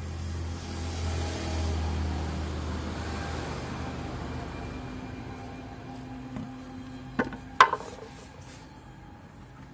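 A motor vehicle's engine hum swells and fades over the first few seconds. Then come two sharp wooden knocks about seven seconds in, as the carved wooden leg is set down on a concrete floor.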